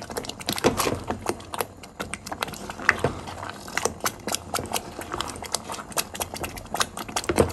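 Thick, gelled halva masghati being stirred in a pot on the stove: irregular clicks, knocks and scrapes of the stirring utensil against the pot, several a second. The halva is nearly cooked, jelly-like and stretchy.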